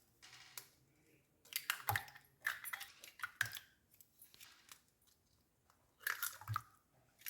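Eggs being cracked into a mixing bowl: short crunchy cracks of shell and small clicks, in three separate bursts.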